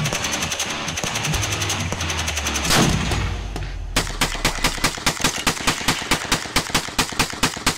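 Gunfire: a dense run of shots with one especially loud crack about three seconds in. From about four seconds there is a steady string of rapid semi-automatic shots, roughly five a second, from a scoped drum-magazine long gun.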